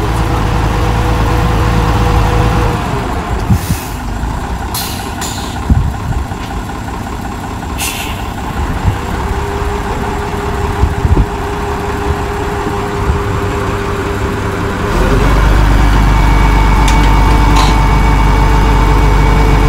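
Heavy tipper truck's engine running with a low rumble, with several short hisses of air about 3 to 8 seconds in. About 15 seconds in it steps up to a louder, faster steady run.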